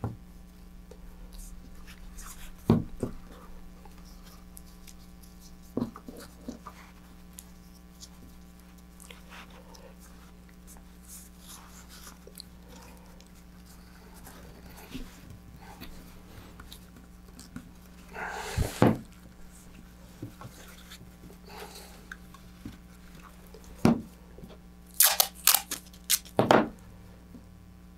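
Handling noise from knotting a rocket shock cord on a cutting mat: scattered knocks and rustles of cord and parts. Near the end comes a cluster of loud, sharp tearing bursts as masking tape is pulled off its roll.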